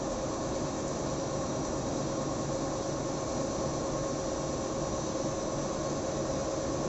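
Paper slitting machine running: a steady mechanical hum with several steady tones over an even whir, unchanging throughout.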